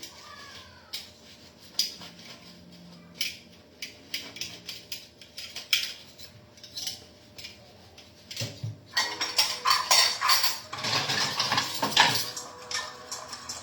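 Dishes and cutlery clinking and clattering during washing up, in scattered knocks at first, then a louder, busier stretch of clatter and rushing noise for a few seconds near the end.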